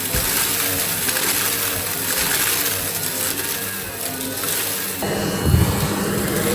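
Goodmans TurboMax vacuum cleaner running with a dense rush of suction noise and debris rattling through it. About 5 seconds in, the sound shifts suddenly to a lower, steadier motor hum.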